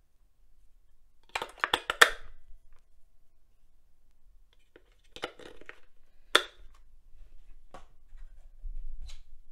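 AA batteries being fitted into the plastic battery compartment of a portable bobbin winder: clatter and sharp clicks as they knock against the housing and seat against the contacts. There is a quick run of clicks about a second and a half in, more clatter around five seconds, and a single sharp click at about six and a half seconds.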